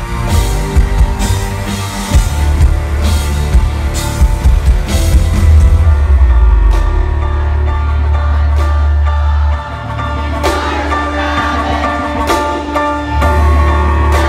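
Live band playing loud rock music: heavy drums and bass, with cymbal crashes about every half second through the first half, then held chords over steady bass.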